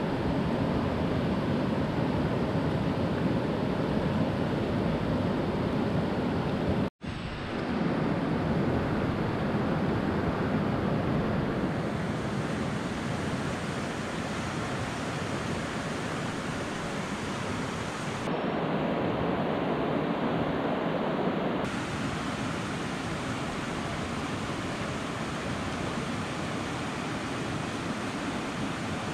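Steady rushing of a hill stream, an even wash of water noise. It drops out for an instant about seven seconds in and shifts abruptly in tone a few times later on.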